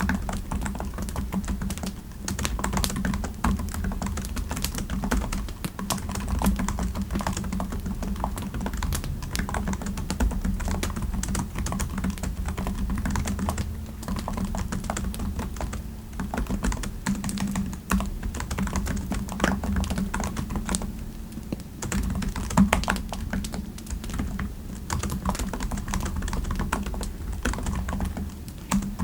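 Typing on a computer keyboard: a continuous run of quick, irregular keystrokes with brief pauses, over a steady low hum.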